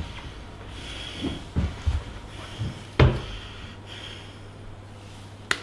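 Several dull knocks and thumps, the loudest about three seconds in, then a sharp click near the end, over a steady low hum.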